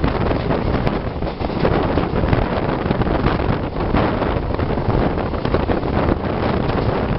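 Steady loud rumble of an express passenger train running at speed, heard from aboard the moving train, with heavy wind buffeting the microphone.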